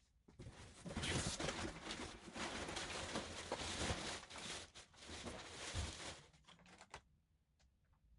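Rustling of plastic wrapping and cardboard, with small knocks, as items are taken out of a box; it dies away after about seven seconds.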